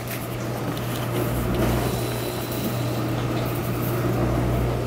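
Steady low hum with an even whooshing noise from a running kitchen appliance.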